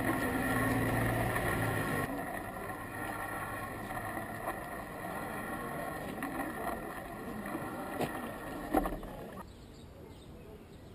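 A vehicle engine running steadily under outdoor background noise. The sound drops off abruptly twice, the second time near the end, leaving fainter ambience.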